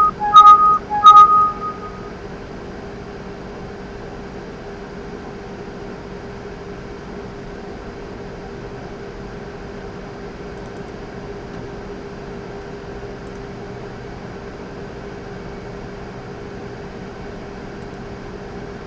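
Three short two-tone computer alert chimes in the first second and a half as warning dialog boxes pop up. After them, only a steady low hum with faint hiss.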